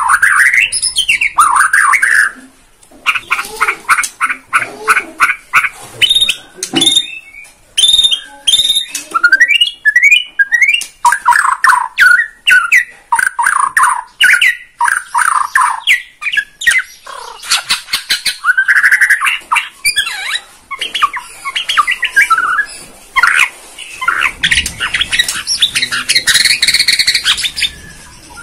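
White-rumped shama (murai batu, Borneo type) singing loudly and almost without pause in full 'gacor' song: a varied run of whistled phrases and sliding notes mixed with rapid rattling trills and clicks, showing off its repertoire.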